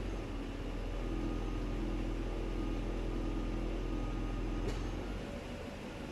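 A steady low mechanical hum with one short sharp click a little over four and a half seconds in.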